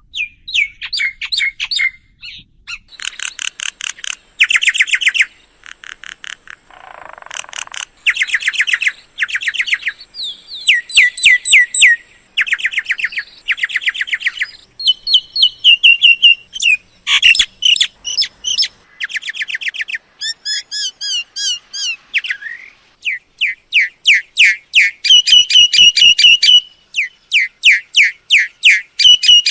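Myna calls: loud runs of rapid, repeated chattering notes, each run a second or two long with short gaps between, mixed with a few gliding whistles and one harsh rasp about seven seconds in.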